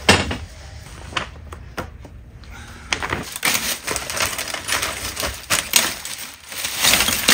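A loud knock as a round plastic folding table is set down on its legs, then a plastic bag crinkling and rustling with plastic bottles shifting inside it, an irregular crackle that fills the last few seconds.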